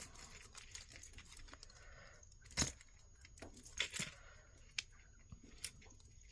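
Small metal jewelry pieces clinking and jangling as they are handled and untangled, with scattered sharp clicks, the loudest about two and a half seconds in.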